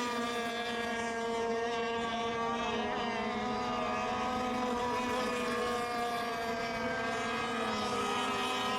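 Several radio-controlled racing boats running laps together, their motors making a steady high drone. Overlapping pitches slide slowly up and down as the boats go around the course.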